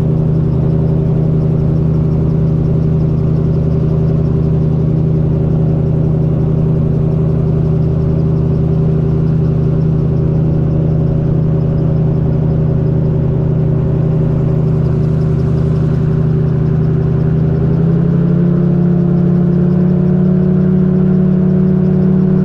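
Magni Gyro M16 gyrocopter's engine and pusher propeller droning steadily in cruise, heard from the open cockpit; near the end the drone steps up slightly in pitch and gets a little louder.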